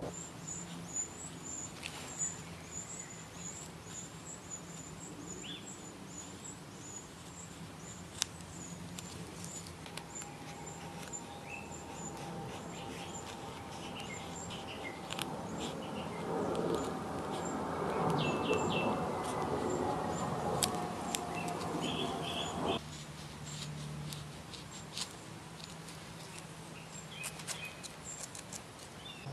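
Birds chirping outdoors, with scattered light clicks and scrapes of a small knife paring dry hoof fungus (Fomes fomentarius). From about ten seconds in, a broad rushing sound with a slowly falling drone builds up and then cuts off suddenly a little past twenty seconds.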